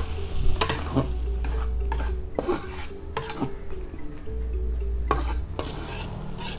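Metal spatula scraping and knocking against a metal wok while meatballs are stirred in a wet chili sauce, with a light sizzle underneath. The scrapes come irregularly, with a short pause about midway.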